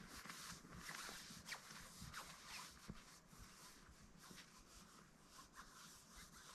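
Faint footsteps crunching through deep, light fresh snow, growing quieter and sparser as the walker moves away, over a soft hiss; overall near silence.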